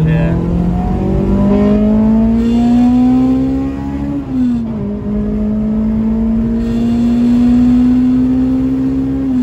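Honda K20A Type R four-cylinder engine in an Acura RSX Type S, heard from inside the cabin under hard acceleration on a stock Civic Type R ECU. The revs climb, drop sharply with an upshift about four seconds in, then climb again more slowly in the next gear until another upshift at the very end.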